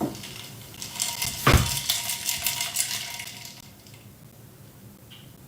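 Kitchenware clattering and clinking: a knock about a second and a half in, within a couple of seconds of rapid clinks, then it fades away.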